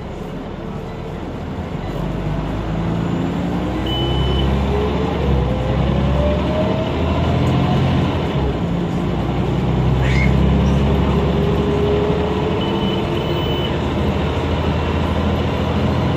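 Inside a Scania Omnicity single-deck bus under way: the engine and drivetrain get louder as the bus gathers speed, with a whine that rises in pitch and comes back a few seconds later. A short high beep sounds early on, and two more near the end.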